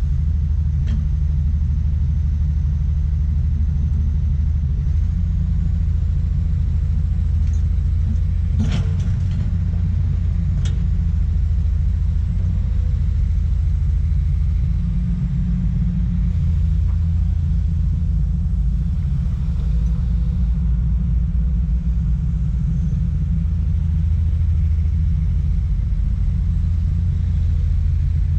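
Komatsu PC200 excavator's diesel engine running steadily with a low rumble, with a couple of sharp knocks about nine seconds in and again two seconds later.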